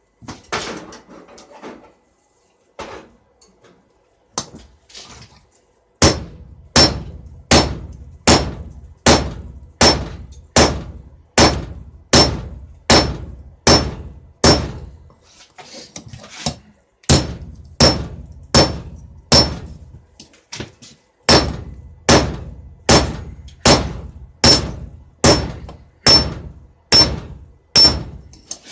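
Hand hammer striking steel on an anvil in steady blows, about one and a half a second, each with a bright metallic ring. The strikes come in three runs with short pauses between them, after a few scattered knocks at the start.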